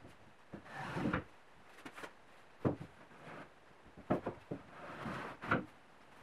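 Carved ash wooden drawers sliding in and out of a wooden chest-of-drawers frame: a rubbing scrape of wood on wood, twice, with several sharp knocks as the drawers bump home.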